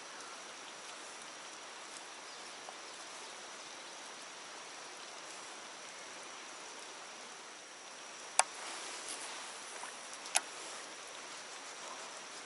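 Steady hiss of water, with two sharp clicks, one about eight seconds in and one about ten seconds in.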